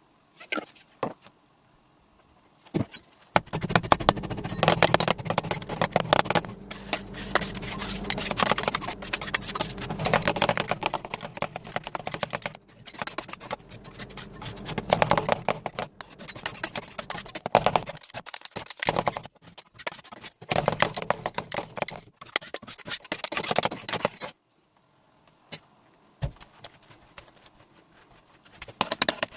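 Metal spatulas rapidly chopping and scraping on the steel cold plate of a rolled ice cream counter, mashing and spreading the strawberry mix, over a low steady hum. The clatter starts about three seconds in and stops abruptly near the end.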